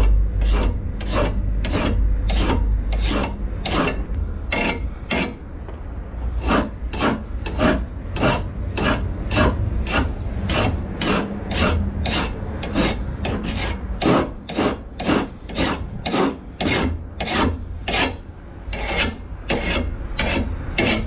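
Hand file being drawn along the edge of a Makita 36V lawn mower's steel blade to sharpen it, in a steady rhythm of about two rasping strokes a second with a short pause about five seconds in.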